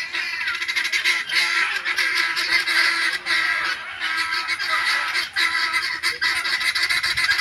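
A flock of guineafowl calling: harsh, rapid, rattling chatter that keeps going, with only brief dips.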